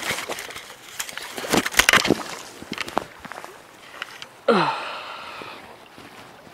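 Clicks and knocks from handling the fly rod and camera. About four and a half seconds in, a short loud groan falls steeply in pitch.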